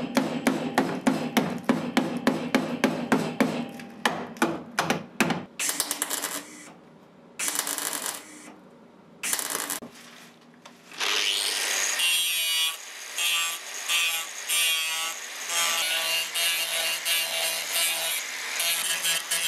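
A mallet knocks a galvanised steel repair panel into place in a quick run of blows, about three a second, for roughly five seconds. A few short bursts of MIG welding follow. Then, from about halfway through, an angle grinder runs steadily, grinding down the welds on the patch.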